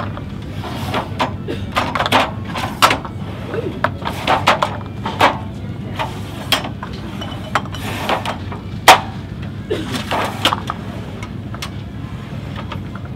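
Jars and a plastic shelf-facing tool knocking and sliding on a supermarket shelf as products are pulled to the front: a string of irregular clicks and knocks, the loudest about nine seconds in, over a steady low hum.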